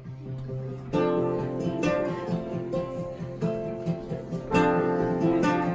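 Acoustic guitar strumming chords, entering louder about a second in.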